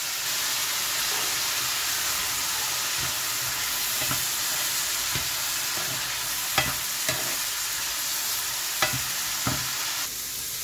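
Chopped green pea pods and onion sizzling in hot oil in a frying pan while being stirred, with several short knocks of the cooking spoon against the pan. The sizzle eases slightly near the end.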